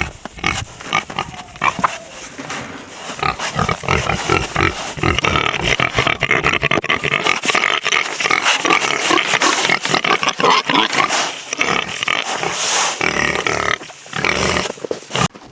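Four butcher hogs vocalizing continuously and close by, a sign that they expect to be fed scraps.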